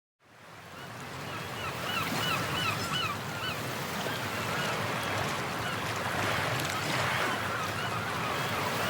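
A run of short, repeated bird calls over a steady rushing background noise, fading in at the start.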